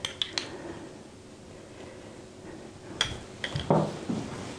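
A metal spoon clinking against a small glass jar of lingonberry jam, a few light clicks near the start and another cluster of clinks and knocks about three seconds in as the jar is set down on the counter.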